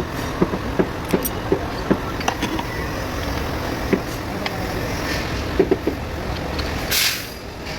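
A steady low rumble of a vehicle engine running nearby, with scattered short metallic clicks and knocks from hand tools and parts, as an alternator is fitted. There is a brief hiss about seven seconds in.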